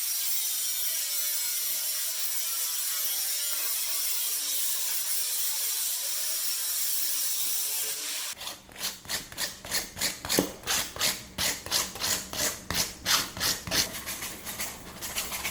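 A steady hiss, then from about eight seconds in, rhythmic rasping strokes about two a second: hand cutting work on the sheet material.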